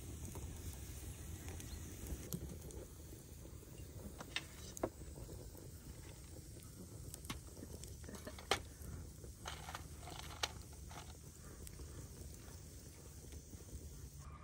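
Quiet outdoor ambience with a low steady rumble and scattered small clicks and taps, with no talk.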